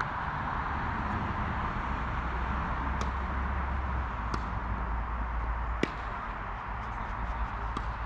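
Steady outdoor background noise with a low rumble, broken by a few sharp knocks of tennis balls being struck or bounced: three clear ones about a second and a half apart, then a few fainter ones near the end.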